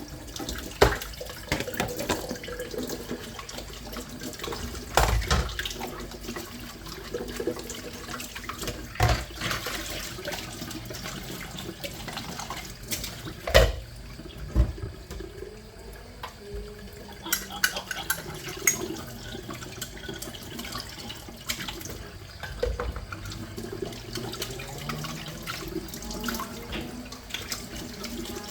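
Tap water running into a sink during hand washing, with scattered sharp knocks and clinks of items being handled. A few rising tones appear in the second half.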